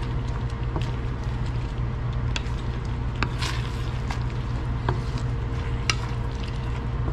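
Wooden spatula stirring bell pepper and carrot strips through simmering sauce in a stainless steel pan: soft wet stirring with scattered light clicks of the spatula against the pan, over a steady low hum.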